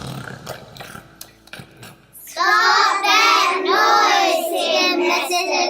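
Children's voices crying out loudly together in a long, wavering, high-pitched call that starts about two seconds in, preceded by a few faint knocks.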